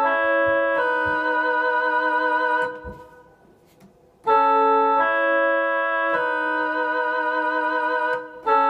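Electronic keyboard playing a trumpet line as two-note harmony in sixths, with held notes. It breaks off about three seconds in and picks up again after a short gap.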